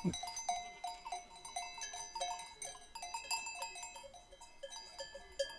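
Bells worn by livestock, clinking and ringing irregularly at several different pitches, a few strikes a second.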